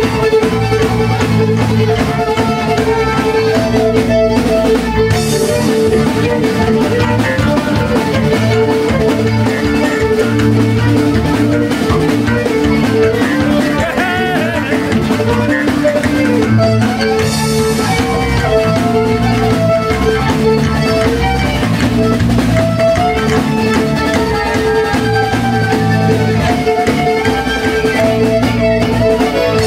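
Live band playing a fiddle-led instrumental tune: a fiddle carries the melody over electric bass guitar and a drum kit, with an accordion joining in.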